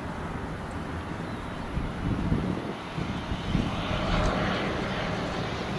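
Silver Airways ATR-72 turboprop airliner on final approach, its engines and propellers growing louder about halfway through as it draws nearer.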